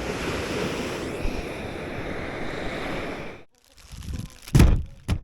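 Ocean surf washing in with wind on the microphone, a steady rush that cuts off suddenly about three and a half seconds in. Then a loud thump, and a short knock just before the end.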